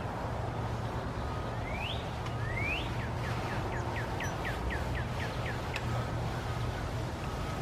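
A songbird sings two rising whistled notes, then a quick run of about a dozen short falling notes, over a steady low hum.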